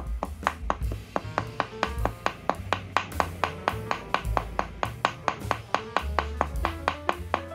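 Background music: a fast, even run of short pitched notes over a deep bass line that steps between notes.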